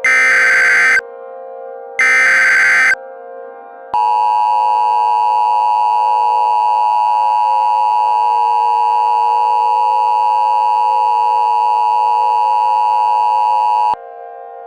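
Emergency Alert System tones: two of the three SAME header bursts, each a harsh digital screech about a second long, a second apart. About four seconds in, the EAS two-tone attention signal (853 and 960 Hz together) starts, holds steady for about ten seconds and cuts off sharply near the end. A lower steady drone runs underneath.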